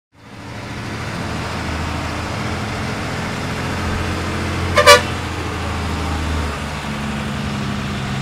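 A vehicle's engine running steadily, heard from inside the cabin while it drives down a winding road. A horn gives two short honks just before halfway, and the engine note shifts about two-thirds of the way through.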